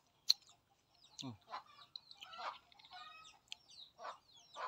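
Chickens clucking in short, scattered calls, with small high bird chirps mixed in.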